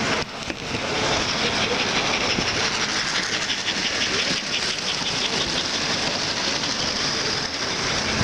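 American Flyer S-gauge model trains running on the layout track: a steady rolling rumble of metal wheels on rail. From about three seconds in, a fast clicking comes in as a steam locomotive and tender pass close by.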